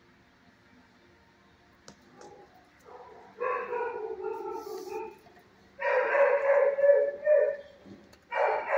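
A dog barking in three long, drawn-out calls: the first about three and a half seconds in, the second about six seconds in, and the third near the end.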